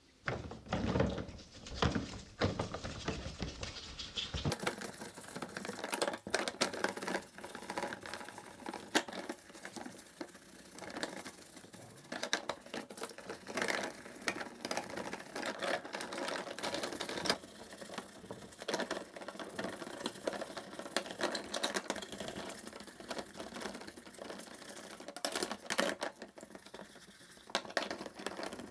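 Bristle brush scrubbing plastic cordless drill housing parts in soapy water in a plastic tub: rapid back-and-forth strokes with wet swishing.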